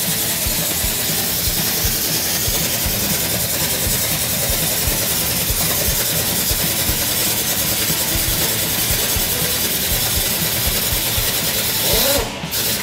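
Pneumatic impact wrench running steadily on a bearing puller's forcing screw as it pulls a tapered roller bearing off a gearbox gear hub: a loud, continuous hissing rattle of air and hammering that cuts off about twelve seconds in.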